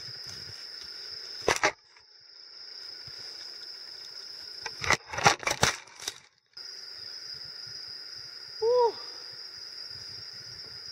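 Evening insect chorus, a steady high-pitched drone, interrupted by loud handling clicks and knocks about a second and a half in and again around five seconds in. A single short call from an animal comes about two seconds before the end.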